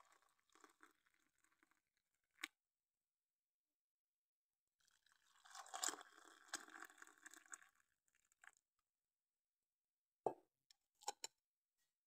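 Hot tea poured from a pot into a ceramic mug: a faint splashing pour tailing off in the first two seconds, then a second, louder pour about five to eight seconds in. A few sharp knocks follow near the end.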